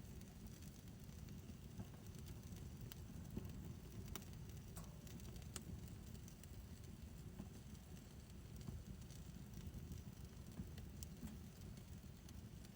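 Wood fire in a backyard fire pit crackling: scattered sharp pops over a steady low rumble.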